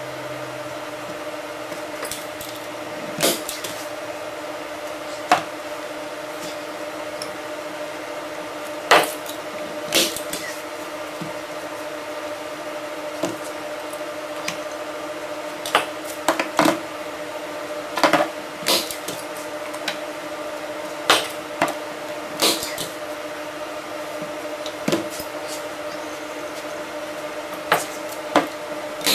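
Staple gun firing sharp shots into a canvas stretcher frame at irregular intervals, one every second or few, some in quick pairs, over a steady hum.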